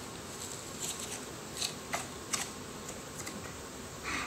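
Soft slime being squeezed and kneaded by hand, giving scattered small sticky clicks and pops over a faint steady hiss.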